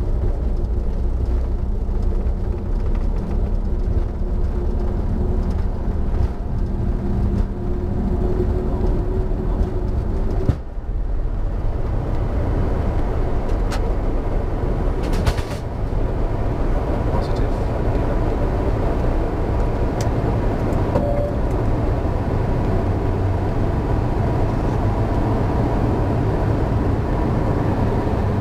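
Flight-deck noise of a CRJ900 taking off: a steady low rumble of the wheels on the runway and the turbofans at takeoff thrust, which changes partway through as the jet lifts off into steady air and engine noise in the climb. A few short clicks and brief tones sound in the cockpit.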